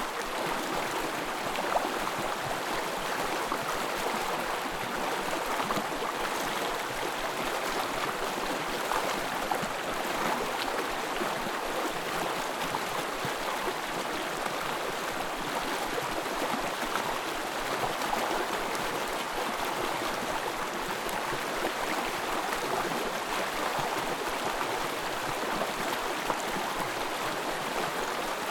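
Small forest stream flowing and babbling over stones, a steady bubbling rush of water.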